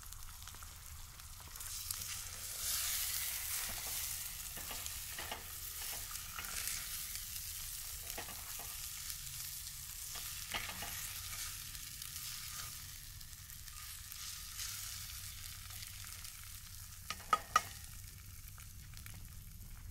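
Eggs sizzling in a cast-iron skillet while a utensil stirs and scrapes them around the pan. Two sharp clicks sound close together near the end.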